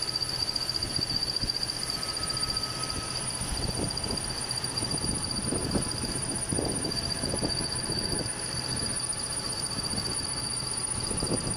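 Milling machine running with a steady high-pitched whine and low hum as its end mill cuts a keyway into a metal shaft; from about four seconds in, uneven rough scraping pulses of the cutter biting the metal come through.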